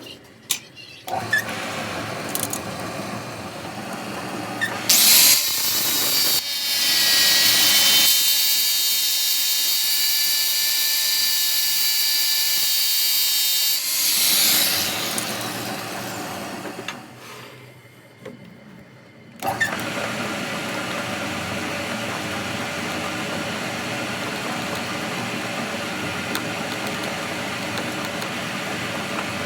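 A power tool runs with a steady high-pitched whine for several seconds, then after a short lull a machine runs with a steady even hum.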